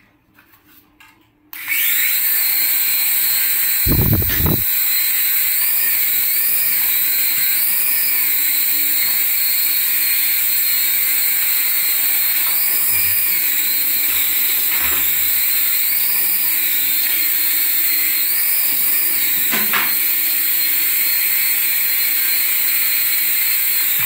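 Small electric motors and rotors of toy RC helicopters running with a steady high-pitched whine that starts suddenly about two seconds in, its pitch wavering up and down now and then. A thump about four seconds in and a couple of lighter knocks later.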